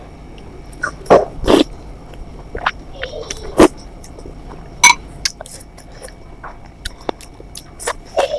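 Close-up eating sounds: irregular wet clicks, smacks and crunches of chewing food, with a few louder bites or slurps.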